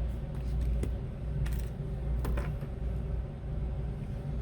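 Light clicks and taps of small tools and phone parts being handled on a workbench, a few sharp ticks over a steady low hum.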